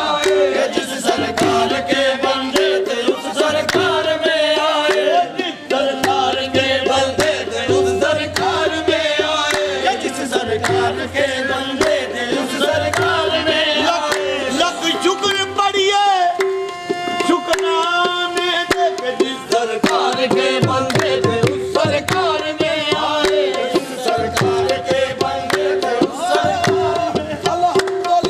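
Qawwali: men singing with the steady rhythm of a hand drum.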